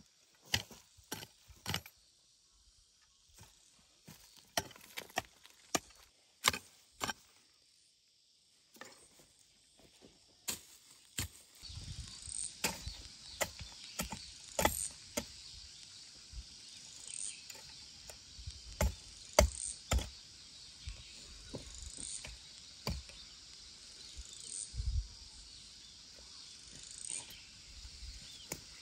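Scattered sharp knocks and taps at irregular intervals, with a steady insect drone coming in about twelve seconds in and carrying repeated short chirps.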